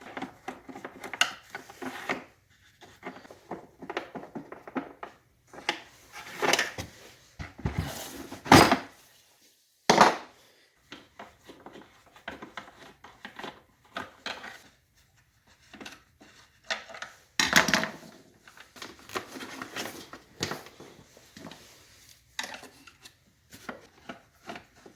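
Hand-tool work on a pancake air compressor's plastic shroud: a T20 Torx driver turning out the handle screws, with irregular clicks, scrapes and rattles and a few louder knocks, the loudest about eight and a half seconds in.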